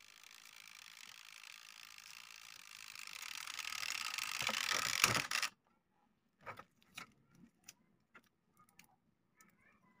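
Plastic rustling as a clear plastic strip is wrapped around a spliced wire joint. It grows louder and stops abruptly about five and a half seconds in, followed by a few faint clicks of wires being handled.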